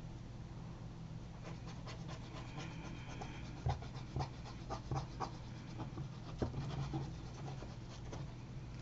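Faint, irregular scratching and light ticks of a plastic glue bottle's nozzle drawn and pressed along the card edge of a frame, over a steady low hum.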